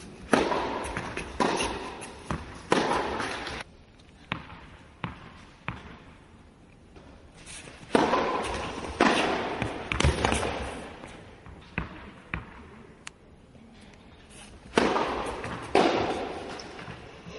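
Tennis balls struck by rackets and bouncing on the court, a series of sharp hits about a second apart, each followed by an echo that dies away over a second or so.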